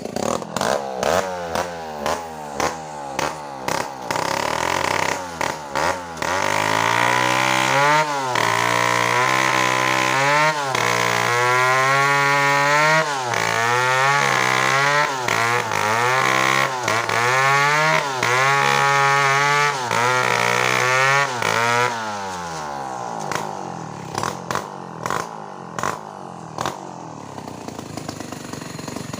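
Two-stroke chainsaw idling roughly with short throttle blips, then held at high revs under load for about fifteen seconds, its pitch dipping and recovering repeatedly as the chain cuts through a coconut trunk. The revs then fall back to a rough idle.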